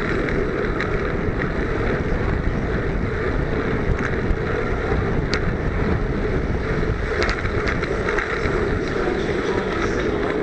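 Wind rushing over a bike-mounted camera's microphone, with steady tyre and road rumble, as a Brompton folding bike is ridden at race speed. A few faint clicks come through the noise.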